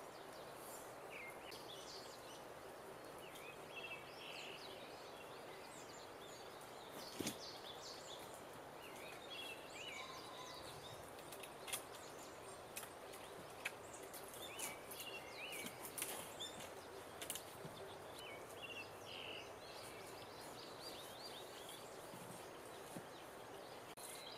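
Woodland ambience with a steady background hiss and birds chirping on and off throughout, broken by a few sharp clicks and knocks from handling the wooden bed frame and its straps.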